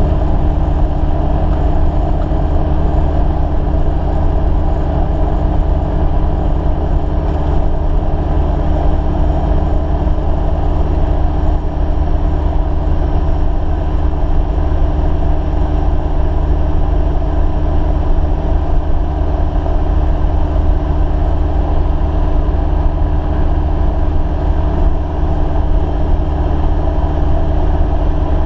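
Light aircraft's piston engine and propeller running steadily, heard from inside the cockpit.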